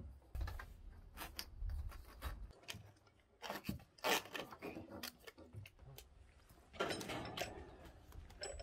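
Irregular light knocks, clicks and scraping of hand work on timber logs as they are fitted together, with a brief lull partway through.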